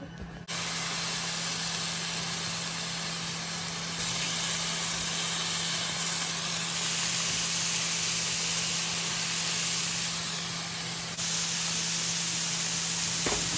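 Meat patties sizzling in a frying pan: a steady hiss that starts suddenly about half a second in.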